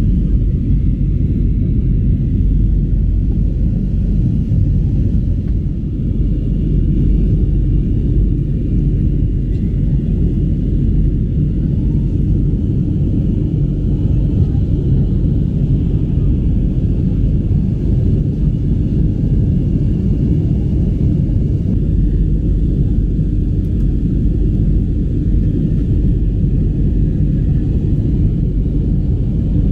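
Steady low rumble of jet engines and airflow inside the cabin of an Airbus A320-family airliner in flight, with a faint steady hum above it.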